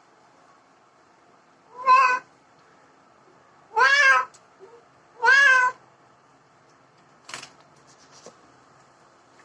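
A domestic cat meowing three times, each call about half a second long and arching up then down in pitch, followed by a sharp click a couple of seconds later.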